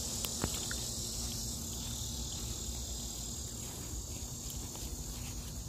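Steady, high-pitched chorus of evening insects such as crickets, with a low rumble of handling and walking underneath.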